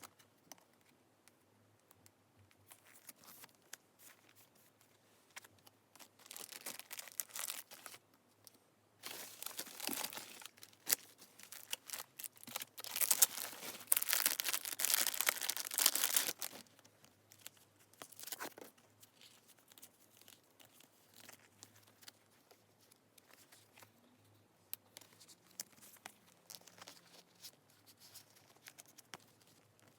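Packaging being torn open and crinkled by hand, in several bursts, the longest and loudest about halfway through, with small rustles and clicks between them.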